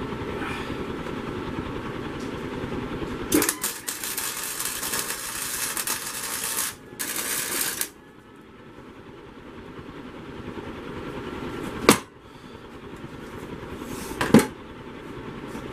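Small Harbor Freight welder's arc crackling and hissing as a weld is laid on sheet steel, in a burst of about three seconds starting a few seconds in and a shorter burst just after. A shop fan runs steadily underneath, and there are two sharp knocks, about 12 and 14 seconds in.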